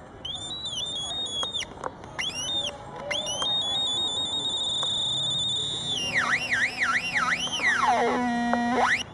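Electronic bird-call imitations from a homemade circuit built from reused electronics: short synthetic chirps and held whistles, then fast warbling glides up and down, and near the end a deep sweep down and back up with a stepped buzz. The pitch follows the light falling on the device's sensor.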